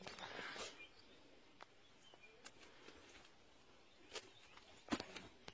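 Goat hooves clicking and scuffing on a pebbled concrete patio: a few faint sharp taps, scattered, the loudest about five seconds in, over quiet outdoor background.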